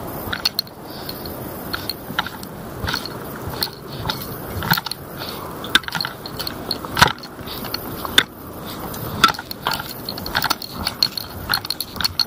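Footsteps on a dirt and stone trail at walking pace, about two steps a second, with sharp clicks and light rattling of carried gear.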